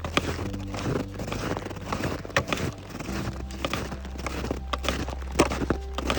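A hiker's footsteps crunching and striking on packed snow and ice at a walking pace, with background music underneath.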